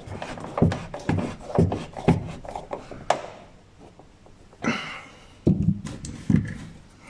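A series of knocks and taps, about two a second for the first three seconds, then a short scraping rub and a few more knocks near the end, from hand work on parts of the car.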